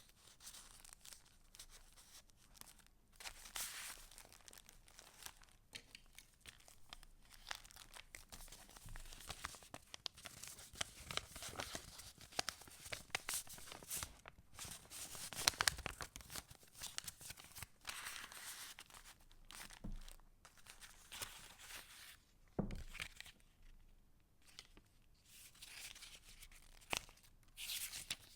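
Paper pages of a handmade junk journal being handled and turned, rustling and crinkling in irregular bursts, with a short lull about three-quarters of the way through.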